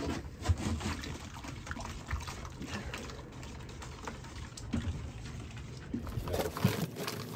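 Wet, irregular scraping and sloshing of thin-set tile adhesive (Flex Bond mixed with water) being stirred and worked with a piece of wood.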